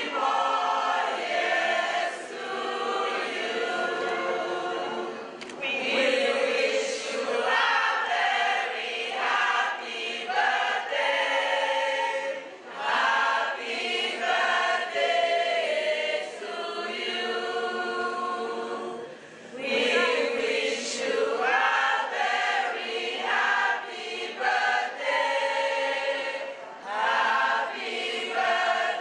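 A group of women singing together as a choir, phrase after phrase, with brief pauses between lines.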